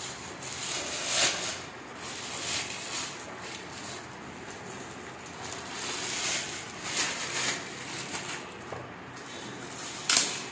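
Clear plastic packing bags rustling and crinkling in irregular bursts as they are pulled open and off an item, with one sharp, loudest crackle near the end.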